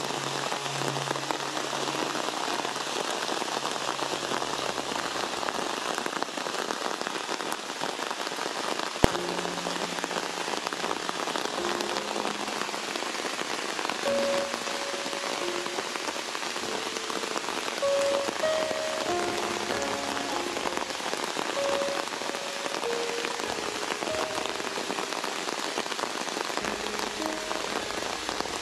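Heavy rain falling steadily, an even dense hiss of drops on wet ground and leaves, with a single sharp click about nine seconds in.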